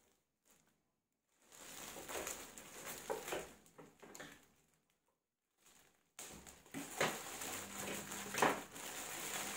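Clear plastic wrapping crinkling and rustling as it is handled and pulled off, in two stretches with a pause between, and a couple of sharp clicks near the end.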